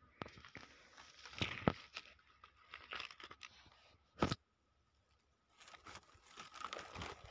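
Irregular crunching and rustling of footsteps on loose pebbly ground, with a few sharp clicks, the loudest about four seconds in, then a brief pause before the crunching resumes.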